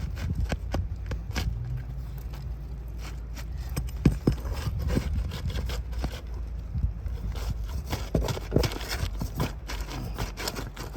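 Scraping, crackling and snapping of brittle asphalt shingles being pried and torn loose on a roof, in irregular clicks and scrapes with a louder burst about four seconds in, over a low rumble.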